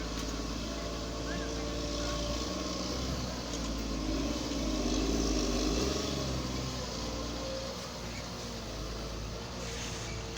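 Construction machinery's engine running on a road construction site, growing louder for a couple of seconds around the middle.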